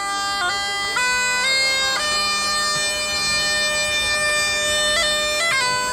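Bagpipes playing a slow tune over a steady drone: a few stepped melody notes, then one long held note, with quick grace-note flicks near the end.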